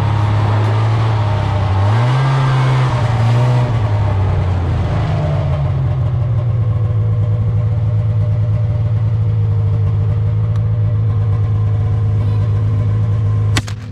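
Ski-Doo snowmobile engine running under way, its pitch climbing briefly about two seconds in, then settling back to a steady run. A sharp click near the end.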